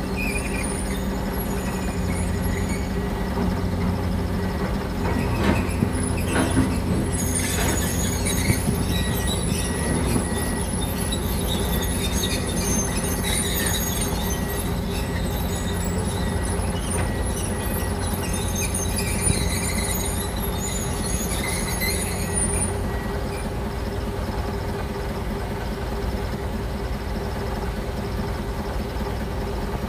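Komatsu excavator's diesel engine running steadily while its steel tracks squeal high and clank as it moves and works the stranded truck. The squealing stops about three-quarters of the way through, and the engine runs on.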